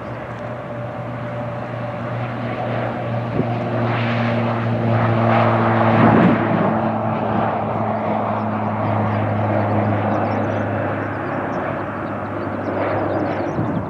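Pilatus PC-12 single-engine turboprop taking off at full power. Its droning propeller and engine grow louder up to about six seconds in, as it lifts off past, then fade as it climbs away.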